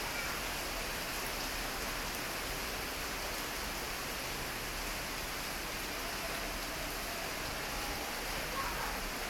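Steady hiss of water spraying from a shower, like falling rain.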